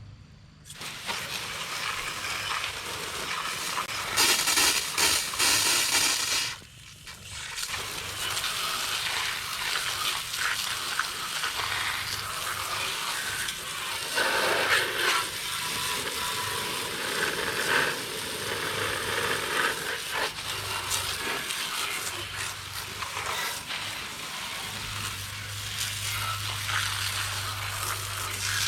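Garden hose spray nozzle jetting water onto a metal mower deck to wash it off, a steady hiss. The spray is louder for a couple of seconds about four seconds in, stops briefly, then carries on.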